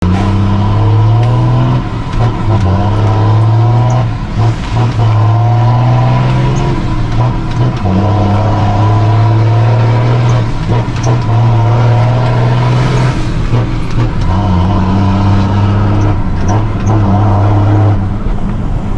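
Mercedes-Benz 1620 truck's diesel engine on a straight-through exhaust, growling loudly as it pulls, its steady note breaking off briefly several times.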